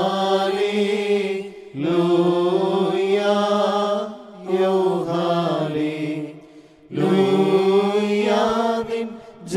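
Slow Syriac-rite liturgical chant: a Malayalam hymn sung in long, drawn-out melodic phrases, each held for about two seconds, with three short breaths between them.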